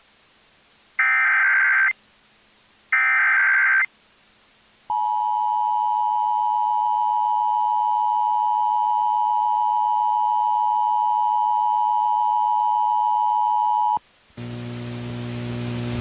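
Emergency Alert System SAME header: two short bursts of warbling digital data about two seconds apart, then the EAS two-tone attention signal held steadily for about nine seconds before it cuts off sharply. The alert is a relayed tornado warning. Near the end a low hum comes in and grows louder.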